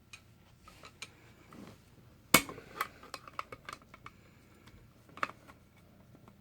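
Scattered small metal clicks and clinks from the parts of a Stanley staple gun and hand tools being handled while the gun is reassembled. There is one sharp, loud click about two and a half seconds in.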